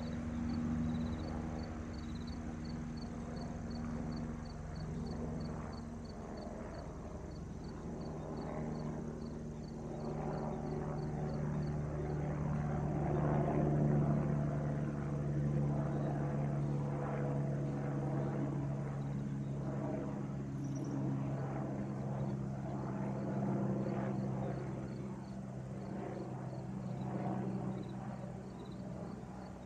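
Airbus H125 single-turbine helicopter flying over high overhead: a steady low hum of several tones from its rotor and engine. It grows louder to a peak about halfway through, then slowly fades as it moves away.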